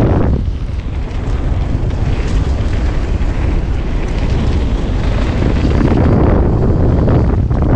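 Wind buffeting the microphone of a helmet- or bike-mounted camera on a mountain bike riding down singletrack, mixed with the tyres rumbling and the bike rattling over the trail.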